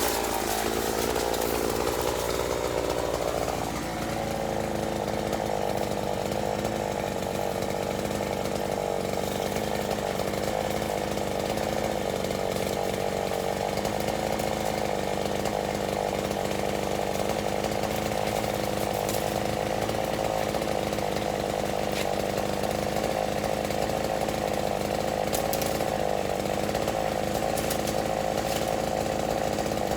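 Chainsaw running continuously. Its engine pitch shifts over the first few seconds, then holds steady.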